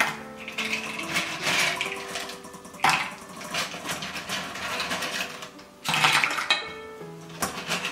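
Clams in their shells dropped into a hot pan with garlic and chili, clattering in short bursts about every three seconds, with the pan sizzling between them. Light background music plays under it.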